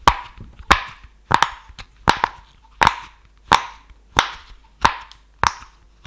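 Bubbles of a heart-shaped silicone pop it fidget toy being pressed in one at a time: about ten sharp pops, evenly spaced about two-thirds of a second apart.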